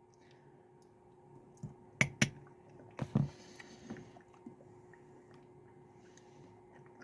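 Quiet eating of ice cream: a spoon clicks against the container twice about two seconds in and twice more about three seconds in, with soft mouth sounds between.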